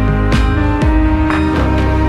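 Instrumental background music with sustained notes and a few soft percussive strokes.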